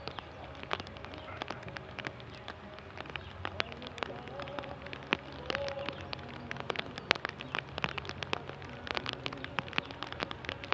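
Rain falling, with irregular drops tapping sharply close to the microphone over a steady wash.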